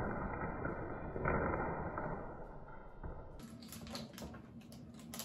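Faint rustling from a LEGO set's cardboard box being held upside down and shaken out, fading away. About three seconds in, a few light clicks and taps.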